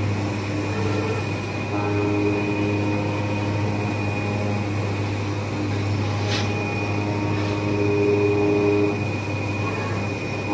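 Richpeace automatic single-ply fabric cutting machine running: a steady low hum and a steady high tone, with motor whines that start, stop and shift in pitch as the cutting head and gantry travel over the bed. A short hiss about six seconds in.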